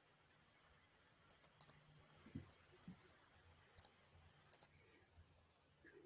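Faint computer mouse clicks, some single and some in quick pairs, against near silence, with two soft low thumps in between.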